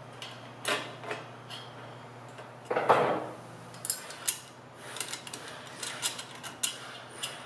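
Metal hand tools clicking and clinking against an aluminium bicycle crank arm as a hex wrench is worked in the crank bolt. There is a louder knock about three seconds in, then a string of light clicks.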